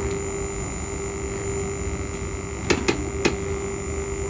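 Steady hum with a faint hiss: the idle noise of a powered STK4191 stereo amplifier through its speakers, with no audio yet playing while Bluetooth pairs. There are three short clicks about three seconds in.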